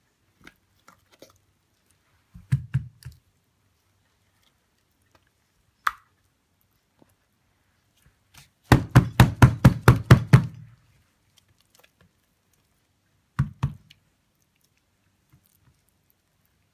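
Wooden soap loaf mold with a silicone liner, full of thick cold-process soap batter, knocked down on a table to settle the fast-tracing batter: a few thumps early, a single sharp knock, then a quick run of about ten knocks, and two more near the end.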